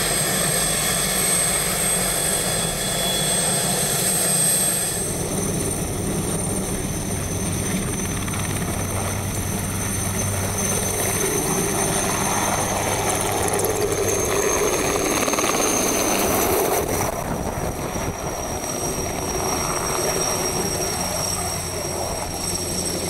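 Rescue helicopter running on the snow and lifting off, its turbine giving a high steady whine over a low hum, with more rushing noise as it takes off around the middle.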